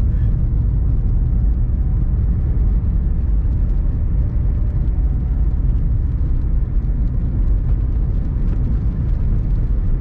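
Van driving on a wet road, heard from inside the cabin: a steady low road-and-engine rumble with the hiss of tyres on the wet surface.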